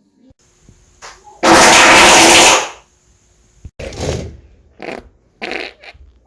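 A person's fart: one very loud, noisy blast lasting about a second, followed by a few shorter, quieter bursts.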